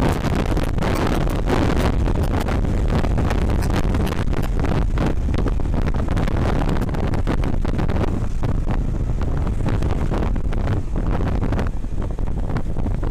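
Heavy wind buffeting on an action camera's microphone from a moving Honda CBR150R motorcycle, with the bike running underneath the wind noise. The rush thins a little near the end.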